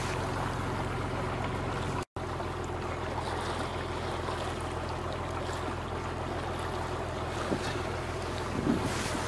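An old wooden fishing boat's engine running steadily under way, with water washing past the hull. The sound drops out for an instant about two seconds in, and there is a short thump near the end.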